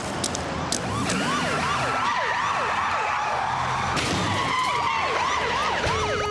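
Several police vans' sirens wailing together, their fast rising-and-falling cries overlapping, growing louder over the first second as the vans arrive.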